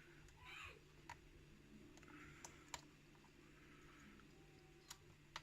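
Faint, scattered clicks of a lock pick and tension wrench working in a modified pin-tumbler lock core, about five sharp clicks spread over a few seconds over a low hum.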